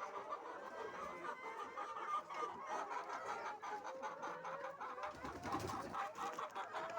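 A flock of laying hens clucking and calling over one another, with many quick light clicks throughout and a brief low rumble about five seconds in.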